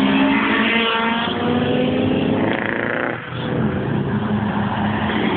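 Car engines revving hard, the pitch climbing over the first second and then falling away. Loudness dips briefly about three seconds in, and a steadier engine note carries on after it.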